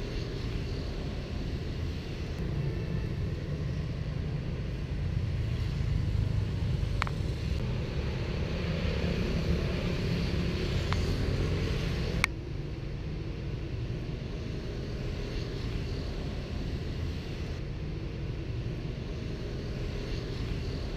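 Steady low outdoor background rumble, growing louder for several seconds in the middle, with a few sharp clicks, the loudest about twelve seconds in.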